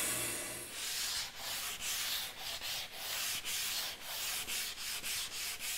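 A sanding block is rubbed by hand back and forth along the edge of an ash board, in quick strokes about three a second. A bandsaw's steady running cuts off under a second in.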